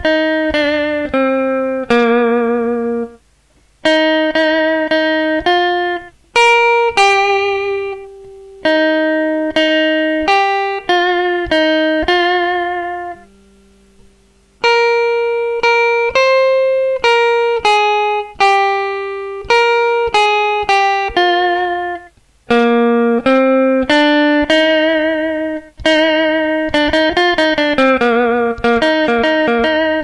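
Electric guitar playing a single-note solo melody in E-flat, the held notes wavering with whammy-bar vibrato. It is played in phrases with short pauses, and a quicker run of notes comes near the end.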